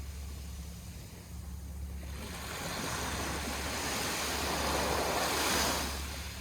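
Aegean Sea waves: a wave washes in, swelling from about two seconds in, peaking near the end and falling away, over a steady low hum.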